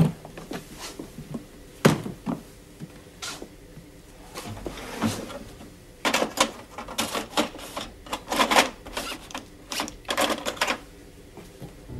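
Handling noises: sharp clicks as the latches of a hard black carrying case are worked, the loudest about two seconds in. From about six seconds in comes a run of quick clatters and rattles as small objects are rummaged through in a wooden box.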